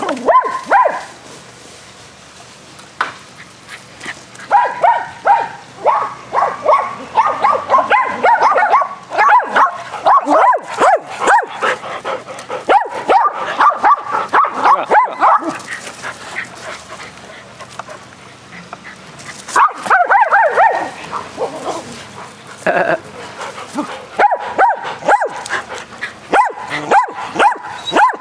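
Dogs barking at play, in rapid runs of several sharp barks a second, with pauses of a few seconds between runs.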